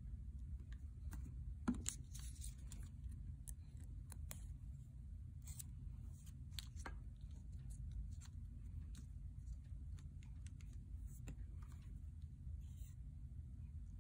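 Hands working on a sheet of paper with a squeeze bottle of glue and small paper pieces: faint scattered taps, clicks and brief paper rustles, over a low steady hum.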